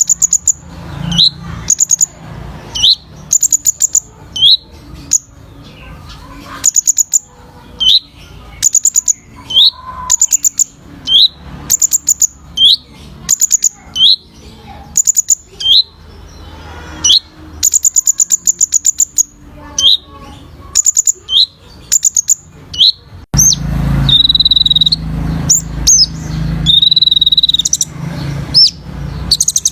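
Kolibri ninja sunbird singing: short phrases repeated about every second and a half, each a quick burst of very high ticking notes and a brief rising whistle. About 23 seconds in the sound changes abruptly to a louder background rumble with longer, held whistles mixed in.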